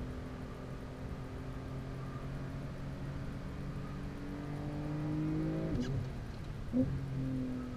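Porsche 911 (992) flat-six engine heard from inside the cabin, pulling under acceleration and rising steadily in pitch. About six seconds in the pitch drops abruptly with a short click as the gearbox shifts, followed by a brief blip about a second later.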